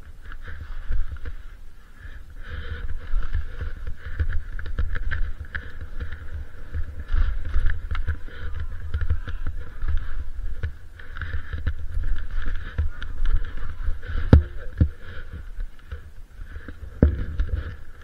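Wide 110 mm-waist Ogso Spencer skis sliding and scraping over off-piste snow: a steady hiss over a low rumble. Two sharp knocks come about three seconds apart near the end.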